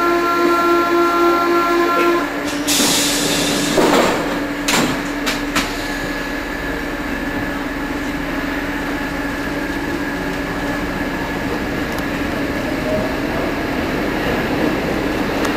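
Paris Métro carriage: a pulsing door-warning buzzer rings for about two seconds, then a hiss and several clunks as the doors close. The train then runs with a steady rumble and a constant motor hum.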